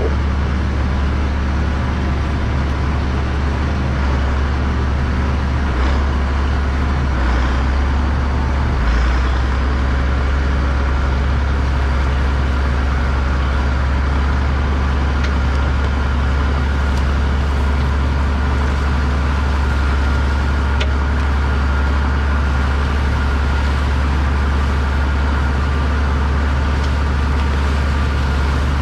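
A large engine running steadily at a constant speed, with a deep, even drone. A few faint knocks come about six to nine seconds in.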